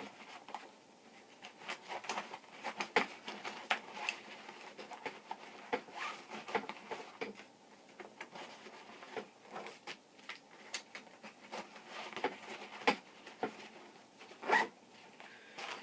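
Small items being packed back into a bag pocket by hand: scattered light clicks and rustles, with a louder scrape near the end.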